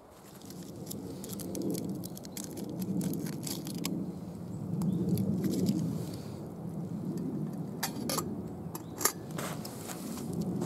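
Log fire burning with a low rushing sound that swells and fades, and scattered crackles, joined in the second half by sharp metallic clinks as the lid goes onto a stainless steel pot with a wire bail handle.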